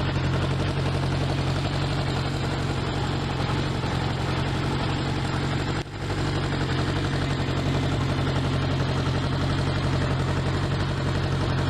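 Honda CB500 Four's air-cooled inline-four engine idling steadily, with a brief drop in the sound about six seconds in.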